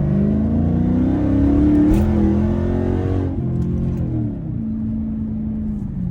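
Chrysler 300 SRT8's 6.4-litre Hemi V8 accelerating hard: the engine note climbs, breaks briefly at a gear change about two seconds in, climbs again, then drops as the throttle is lifted after about three seconds and settles to a steady lower note.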